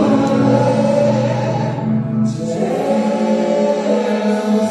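Live gospel worship music: a male vocalist singing long held notes over electronic keyboard chords and a sustained bass. The harmony changes a little past halfway.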